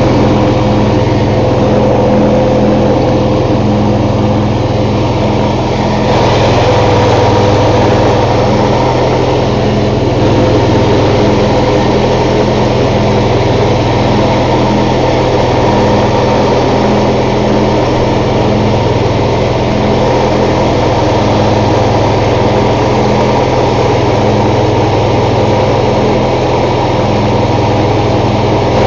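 MTD lawn tractor's engine running steadily, on its first run after sitting through the winter.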